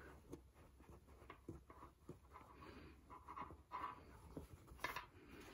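Near silence with faint handling noise: a few soft clicks and rustles as the brass thumbscrew of a wooden embroidery hoop is tightened over cap fabric.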